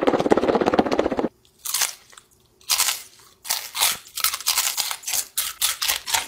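Takis rolled tortilla chips shaken in a closed plastic container: a dense, loud rattle for about a second. Then crunchy bites and steady chewing of the sauce-coated chips, about four crunches a second.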